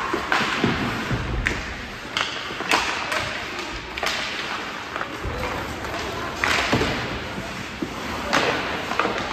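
Ice hockey play in a rink: irregular sharp clacks and thuds of sticks, puck and boards over a steady background of rink noise.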